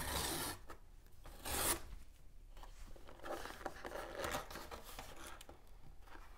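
Cardboard shipping box being torn open by hand: a rasping tear at the start and a short louder rip about a second and a half in, then softer scraping and rubbing of cardboard as the flap is pried open.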